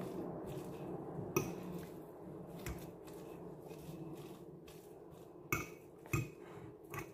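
A fork clinking and scraping against a ceramic bowl while stirring crumbled cheese and chopped coriander together, with a handful of separate clinks spread through and the sharpest about a second and a half in.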